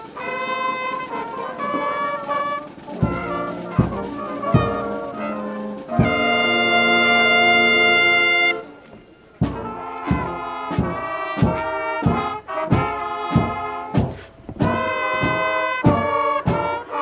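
School band playing the recessional: brass over a drum beat. About six seconds in the band holds one long chord, breaks off briefly, then comes back in with a steady beat of about two drum strokes a second.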